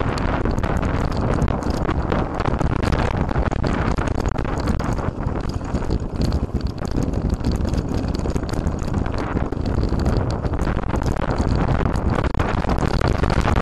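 Mountain bike riding over a rough trail: wind rushing on the microphone, with constant small knocks and rattles.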